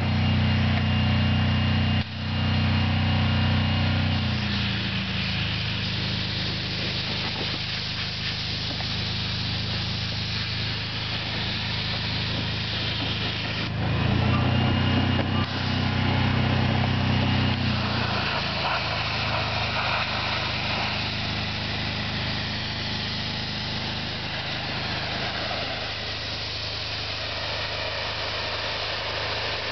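Gas-engine pressure washer running steadily, with the continuous hiss of its high-pressure water spray as mold and mildew are washed off vinyl fencing. The engine hum is louder in the first few seconds and again for a few seconds around the middle.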